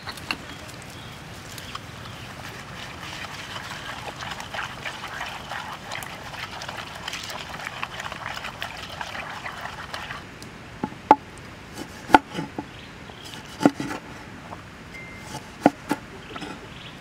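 Wooden pestle grinding chili and salt in a wooden mortar, a steady gritty scraping. About ten seconds in this gives way to a cleaver chopping limes on a wooden board: a handful of sharp, unevenly spaced knocks.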